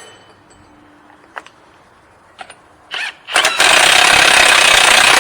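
A few light clicks of a socket being fitted, then an impact wrench with a 36 mm socket starts about three and a half seconds in and runs loud and steady, spinning the new front axle's hub nut on to draw the axle through the hub until snug.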